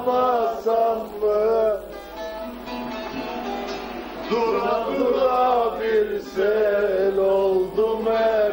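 A bağlama (long-necked Turkish saz) being plucked while a man sings along. The voice drops out from about two to four seconds in, leaving the saz playing more softly, then comes back in.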